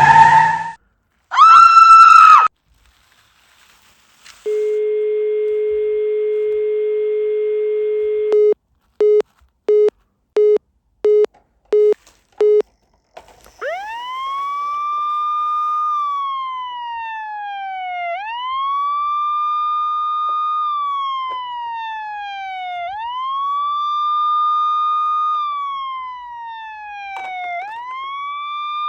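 A telephone dial tone held for about four seconds, then six short beeps at the same pitch. After that a siren wails, rising quickly and falling slowly about every four and a half seconds. A brief loud tone sounds about a second and a half in.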